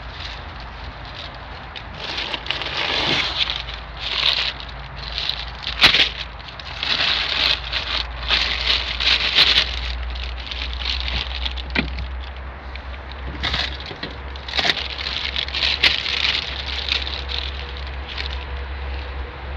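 Intermittent rustling and crackling in uneven bursts, with a few sharp clicks, over a steady low rumble.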